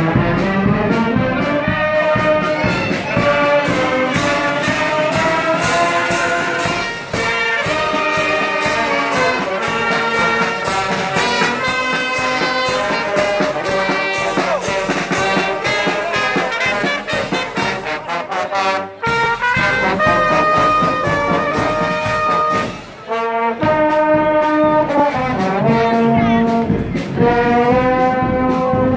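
Marching band playing a march: trumpets, trombones and clarinets carry the tune over a steady bass-drum and snare-drum beat, with two brief breaks in the playing in the second half.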